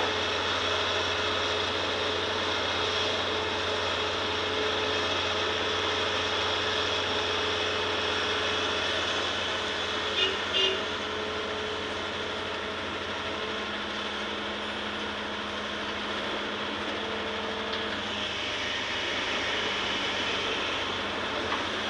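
Excavator's diesel engine and hydraulics running steadily under load as it digs and swings soil into a dump truck, with a constant low hum. About ten seconds in there are two short, sharp sounds a fraction of a second apart.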